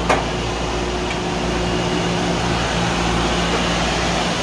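Industrial R410a chiller running: steady compressor hum with condenser fan noise, and a sharp click right at the start.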